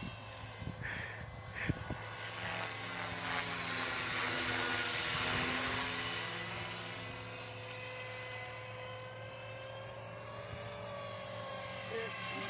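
KDS 450SV electric radio-controlled helicopter in flight: a steady motor whine and rotor hum that grows louder about halfway through and fades again, its pitch bending slightly.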